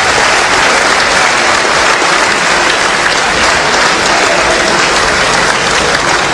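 Audience applauding steadily, a dense clapping that holds at full strength throughout.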